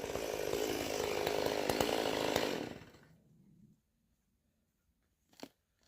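A two-stroke chainsaw running, its pitch shifting, then stopping and winding down about two and a half seconds in. Near the end there is a single short crunch.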